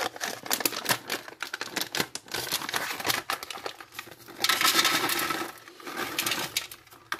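Plastic MRE pouch crinkling and crackling as it is handled and pulled open at its perforation, with a longer tearing rasp about four and a half seconds in.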